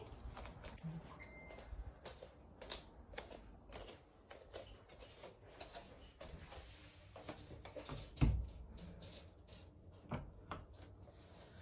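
Phone handling noise and light footsteps while walking to a door: faint scattered clicks and taps, with one louder low thump about eight seconds in.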